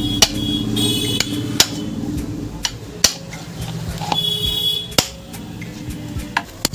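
Metal parts of an old ceiling fan knocking and clinking while a threaded fitting is worked and tightened by hand: about five sharp knocks a second or two apart, with brief scraping and ringing, over a steady low hum.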